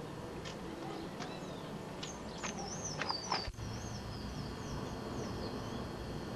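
Small birds chirping: quick high chirps and a run of short wavering, rising-and-falling notes over a steady low background noise. The sound breaks off for an instant about halfway through, where the recording cuts.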